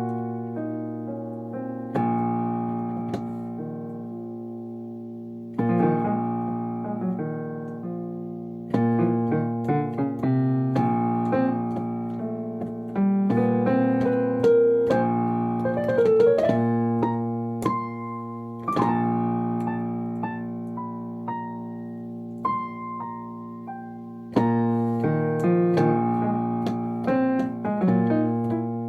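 Piano-style keyboard music: chords and melody notes struck and left to ring and fade, with new phrases beginning about 2, 6 and 9 seconds in and again near the end.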